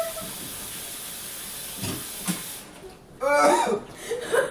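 A kitchen tap running into the sink, shut off a little over halfway through, then loud coughing and hacking near the end: the throat irritated by a mouthful of dry cinnamon.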